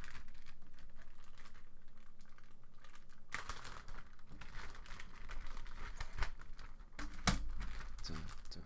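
Clear plastic bag crinkling and rustling as a stacked-acrylic keyboard case is slid out of it. The crinkling grows louder about three seconds in, with a couple of sharp knocks in the second half.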